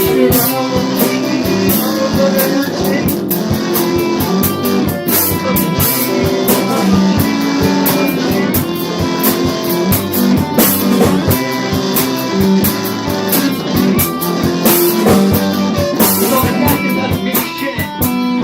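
A band's demo recording of a rock song, with guitar and drum kit playing steadily throughout.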